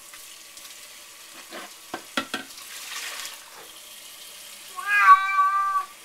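A cat meowing once, a long call of about a second near the end, as it is held wet under a running kitchen faucet. The tap water runs throughout, with a few sharp knocks about two seconds in.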